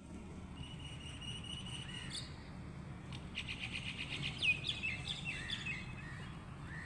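Birds chirping and calling: a held high note, then a quick run of notes and several falling chirps, over a steady low outdoor rumble.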